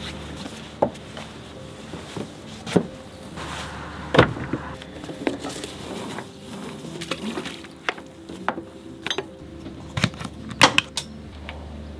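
Scattered knocks, clicks and clinks of sailboat gear being handled (a canvas cover, dock lines, a panel switch), over a low steady hum.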